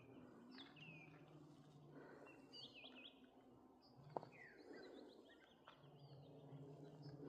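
Faint birdsong: several descending whistled notes and quick runs of chirps, over a low steady hum. A single sharp tap sounds about four seconds in.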